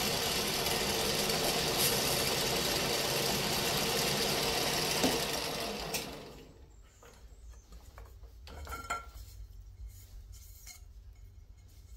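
Combination lathe-mill's drill spindle running while a stubby drill bit cuts through metal tubing: a steady whirring machine noise. About six seconds in the machine stops and the noise drops away, leaving a few light knocks as the tube is handled.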